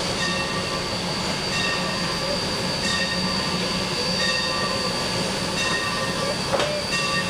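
Steam locomotive running slowly on the track, a steady wash of steam and running noise. A short ringing note repeats about every second and a half.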